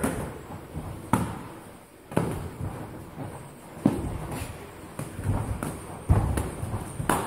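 Padded boxing gloves thudding as punches land during sparring: about seven sharp hits, roughly one every second.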